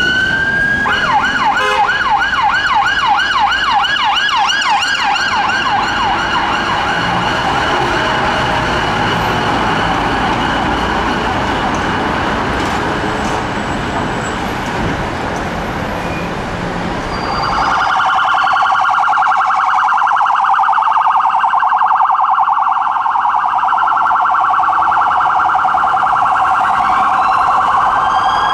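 Police car siren running through its tones: a fast yelp sweeping up and down about four or five times a second, which about 17 seconds in changes to a much faster warble, over traffic noise.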